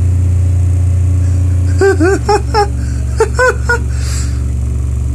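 Loud deep bass from home speakers playing a bass test track: a sustained low note that changes to a different note about two seconds in. A few short sliding, voice-like sounds come in over the bass in the middle.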